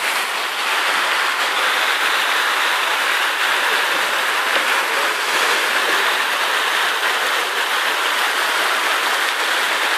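Steady rush of running water from water slides pouring into a pool, even and unbroken.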